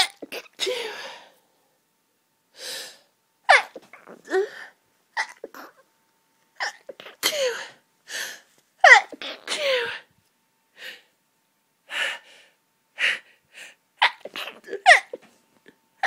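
A person's hayfever sneezing fit: about ten sharp sneezes in quick succession, some in close pairs, each ending in a falling cry, with short quick breaths between them. The sneezes are brought on by an allergy to pollen.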